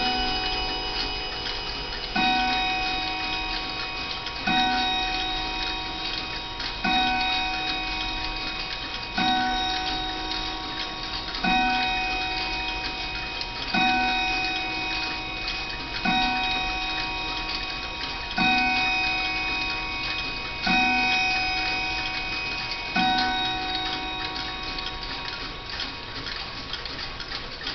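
Howard Miller Samuel Watson mantel clock striking ten o'clock: ten slow strikes on its chime rod, about one every two and a quarter seconds, each ringing out and fading, with the clock's steady ticking underneath.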